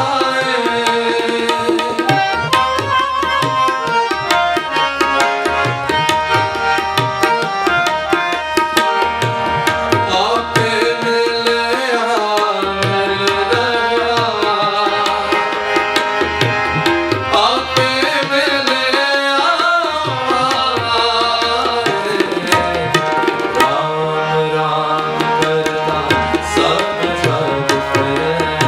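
Sikh devotional kirtan music: tabla playing a steady rhythm under a sustained melodic line.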